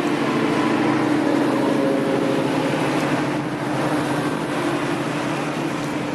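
A car engine running close by: a steady low engine note with a rapid pulsing rumble, holding level throughout.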